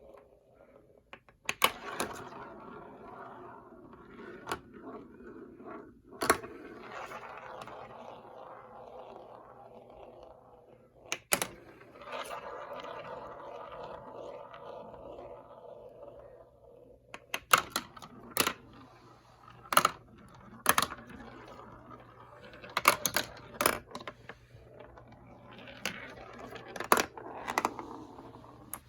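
Marbles rolling down a plastic marble-run track with a steady rattling rumble, broken by sharp clacks as they drop and strike the pieces, the clacks coming thick and fast in the second half.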